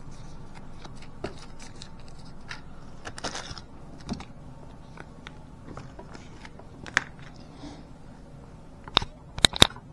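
Folding knives and their packaging being handled: scattered small clicks and taps, a brief rustle about three seconds in, and three sharp clicks near the end.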